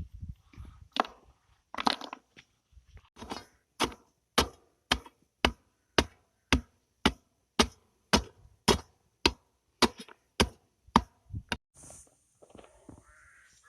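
Repeated sharp striking blows, a few uneven ones at first, then a steady beat of about two a second that stops about a second and a half before the end.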